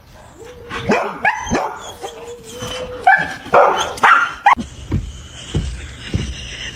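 A dog barking, a string of short barks over the first few seconds.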